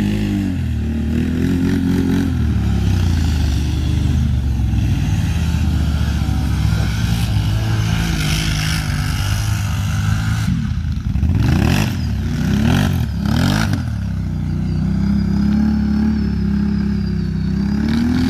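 ATV engines running on a mud pit: the big quads of a Kawasaki Brute Force 750 and a Can-Am Renegade XMR 1000. Between about ten and fourteen seconds in, the throttle is blipped several times in quick rises and falls, then the engine holds a steadier, higher note.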